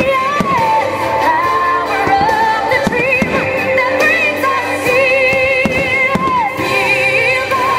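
Pop-style music with a singer holding long notes with a wide vibrato over steady accompaniment.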